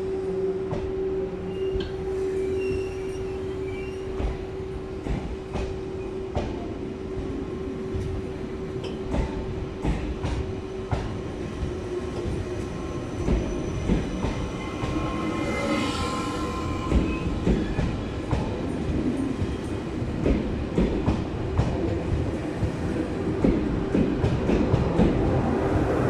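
Double-deck TGV Duplex train pulling out of the station and gathering speed past the platform. A steady hum at the start fades away, while the wheels' clicking over the track comes faster and louder and the train's noise builds toward the end.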